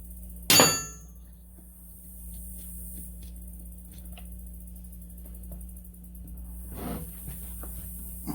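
A metal tool strikes once with a short metallic ring about half a second in, followed by faint clicks and small handling sounds over a steady low hum.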